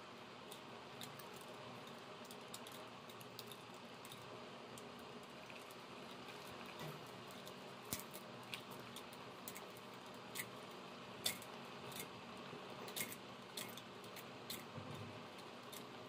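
Knife blade whittling a thin wooden stick: scattered sharp clicks and scrapes, more frequent and louder from about halfway through, over a steady low hiss.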